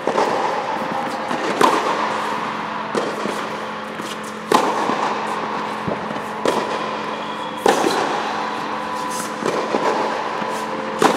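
Tennis racket striking balls in an indoor air-supported tennis dome: a sharp pop every one and a half to two seconds, seven in all, over a steady hum.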